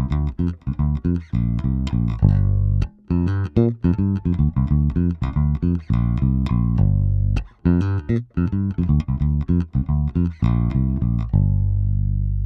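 Fender Jazz Bass played through the clean channel of an EBS MicroBass3 bass preamp: quick runs of short plucked notes, broken by two brief pauses, ending on one long low note left ringing.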